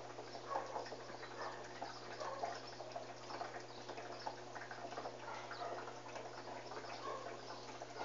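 Electrolux 13 kg washing machine running: an irregular patter and splashing of water over a steady low hum.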